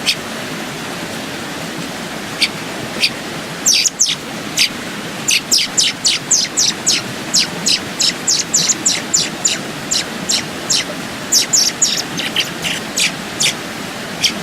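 Young American robin chirping: short, high, sharp chirps, a few at first and then coming quickly one after another from about five seconds in, over the steady rush of a creek.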